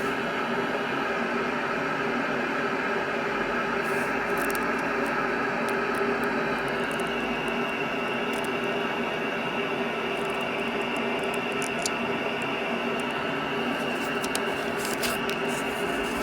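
Steady machine-like hum and hiss with several constant tones, and a few faint clicks near the end.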